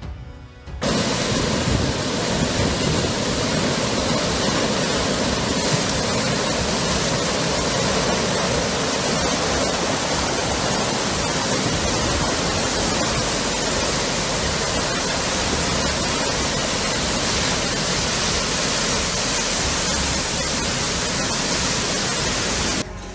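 A muddy torrent rushing down a stone-lined channel: a loud, steady rushing noise that starts abruptly about a second in.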